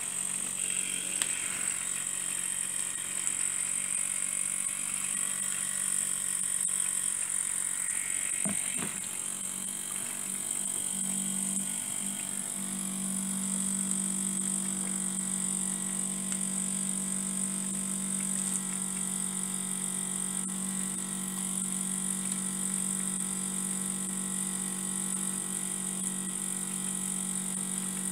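Two small scratch-built oscillating-cylinder ('wobbler') model steam engines running steadily on live steam, with a steady high hiss and a low hum; a few light knocks come about eight seconds in.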